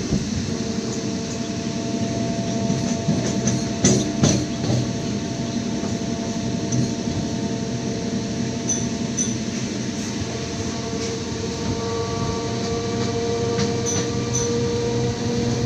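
Electric multiple unit (MEMU) train running, heard from its open doorway: a continuous rumble of wheels on rail with a steady electric whine that climbs slightly in pitch near the end. A cluster of sharp clacks from the wheels comes about four seconds in.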